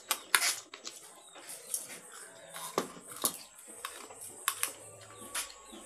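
Spoons and forks clinking and scraping on ceramic plates as people eat, in irregular sharp clicks.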